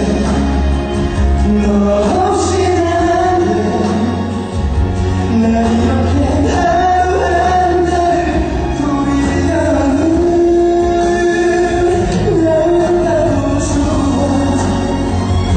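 A male singer performing a slow ballad live into a handheld microphone, with long held notes over a steady backing track.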